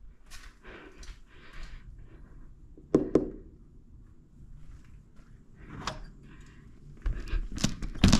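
Scattered knocks, thuds and rustling of someone moving about inside a building, with two sharp knocks about three seconds in and a louder cluster of knocks near the end.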